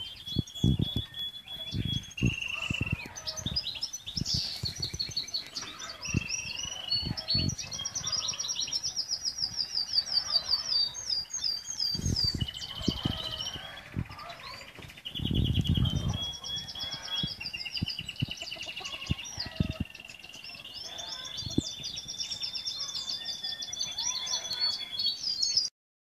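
Small birds chirping and trilling continuously in quick, repeated high notes, several overlapping. Irregular low thumps and rumble sit underneath, strongest for about a second midway, and everything cuts off suddenly near the end.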